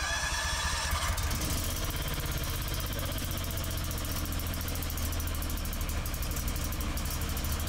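Honda 15 kW propane generator's engine catching on choke, its pitch rising briefly in the first second, then running steadily with a deep hum and even firing pulses.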